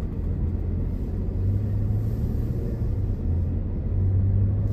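Steady low rumble of a car's engine and tyres on the road, heard inside the cabin while driving slowly.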